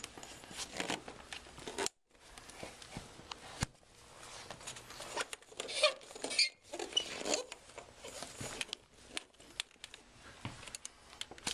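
Hand-handling of a folding kayak's frame inside its hull skin: the longerons and their slide sleeve being pulled together and slid into place, with scattered clicks, knocks and scraping and rustling of the skin.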